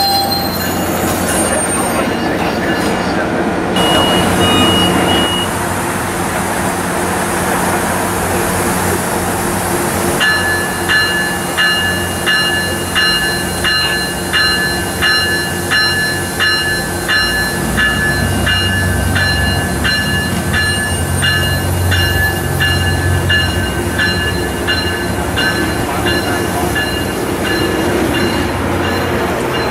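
Trains at a station: a steady rumble of a freight train rolling past, and from about a third of the way in a train bell ringing steadily, about once a second.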